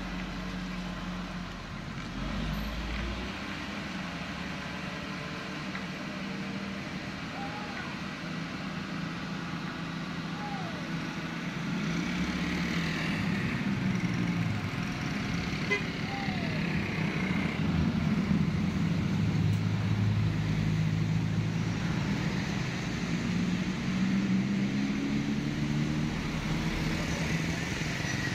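Diesel engine of a loaded fuel tanker truck labouring up a steep hill at low speed, mixed with other passing road traffic; the vehicle noise grows louder about halfway through.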